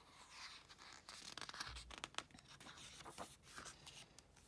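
A page of a glossy album photobook being turned by hand: quiet paper rustling with a run of light crinkles and clicks.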